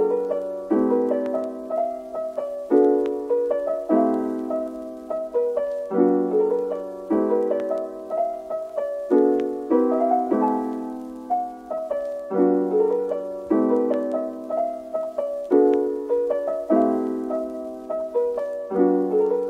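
Background piano music: soft chords and a simple melody, each note struck and then dying away.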